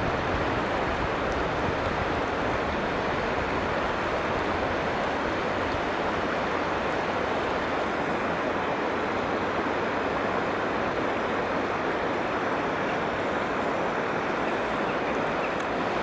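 Steady rushing of a shallow river flowing fast over stones, with a low rumble of wind on the microphone.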